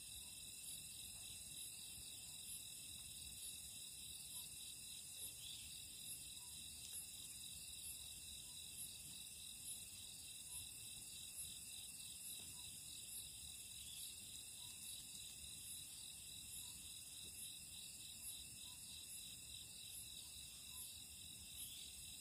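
Faint, steady night chorus of crickets trilling, with a chirp repeating at a regular pulse.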